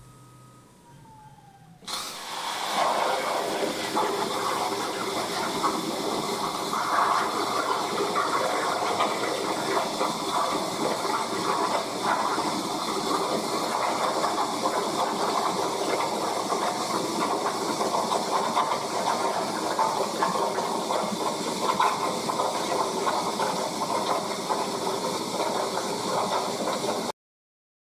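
CNC plasma cutter torch cutting steel plate: a steady, loud, rushing hiss of the arc and air stream. It starts abruptly about two seconds in and cuts off sharply near the end.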